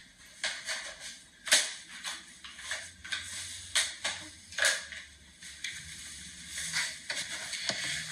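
Irregular clicks and clacks of hands fumbling with a trading-card box and hard plastic magnetic one-touch card holders clinking, a few of them louder, over a faint low hum.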